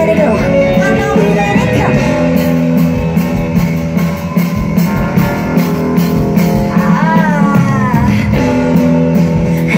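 Live pop band playing through a large outdoor PA, heard from the crowd: steady band music with guitar, and a woman's sung line that swoops up and down about seven seconds in.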